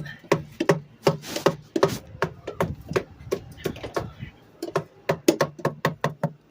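Ice built up inside a refrigerator being struck again and again, a rapid run of sharp knocks at about three a second.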